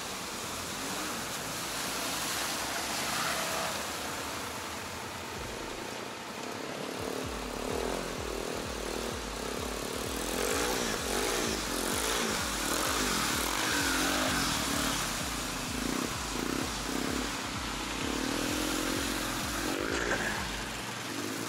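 Quad bike (ATV) engines running and revving, the engine pitch rising and falling repeatedly over a steady rumble.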